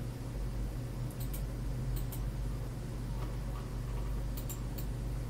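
A few sharp computer mouse clicks, some in quick pairs, over a steady low hum.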